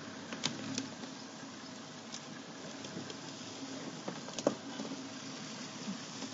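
Quiet outdoor bush ambience: a steady hiss with a faint low hum and a few soft clicks, the sharpest about four seconds in.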